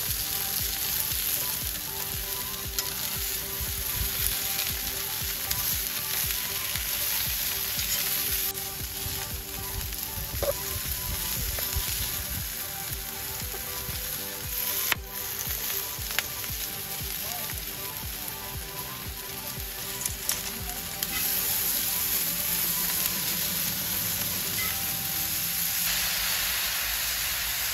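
Edamame pods sizzling steadily in a steel pan over a wood fire. The sizzle grows louder about three-quarters of the way through, and near the end tongs stir the pods.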